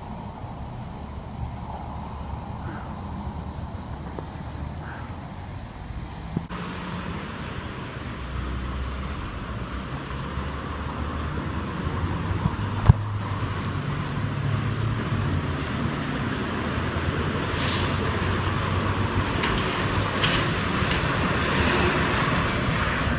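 Heavy rain with vehicle traffic noise: a steady rush with a low rumble beneath it that changes abruptly about six seconds in and then slowly grows louder, with a single sharp knock about thirteen seconds in.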